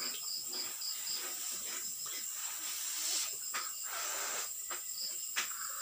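Crickets chirping in a quick, even pulse over a faint steady hiss, with a couple of light clicks of a spoon on a plate.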